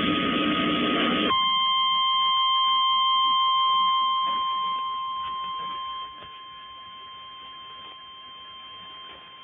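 A second or so of loud radio noise, then a NOAA Weather Radio warning alarm tone (the 1050 Hz tone): one steady high-pitched beep that is held on. It grows quieter about halfway through, signalling that a warning message is about to follow.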